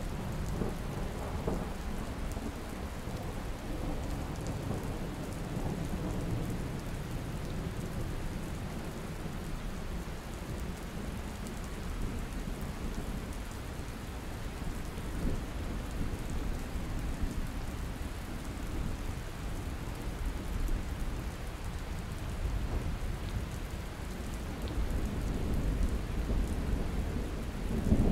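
Steady rain falling on surfaces, with low thunder rumbling underneath and swelling louder near the end.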